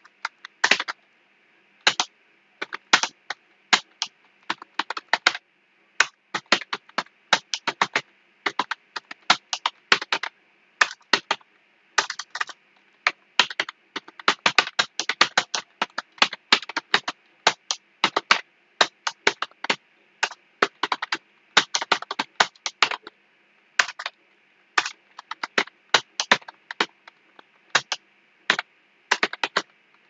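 Computer keyboard keys being typed at an uneven, unhurried pace, a few keystrokes a second with short pauses between runs, over a faint steady hiss.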